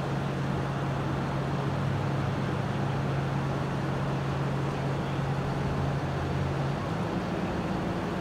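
Steady low engine drone of a car ferry under a constant wash of noise; the hum steps up in pitch about seven seconds in.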